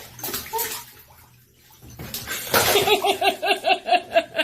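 Water sloshing and splashing, with a loud splash a little over two seconds in. It is followed by a rapid, even run of high laughter, about five 'ha's a second.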